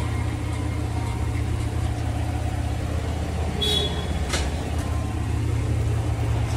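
A steady low engine-like hum, with two short metallic clicks a little past the middle.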